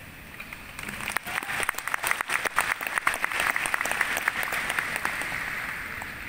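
Audience applauding, starting about a second in, building to many overlapping claps and dying away near the end.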